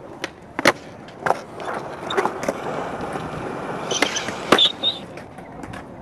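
Skateboard on concrete: sharp clacks of the board hitting the ground, the first just under a second in and the loudest a little after halfway, with the wheels rolling steadily over the concrete in between.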